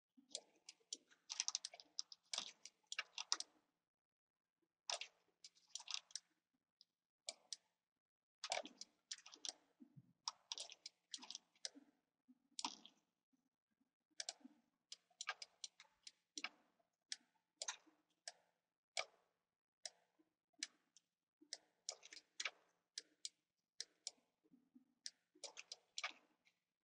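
Computer mouse clicking faintly, in quick runs of several clicks with short pauses between.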